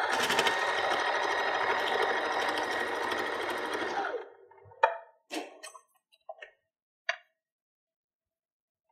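Electric sewing machine top-stitching through two layers of quilting cotton: the motor speeds up, runs steadily for about four seconds, then slows and stops. A few brief rustles follow as the fabric is handled.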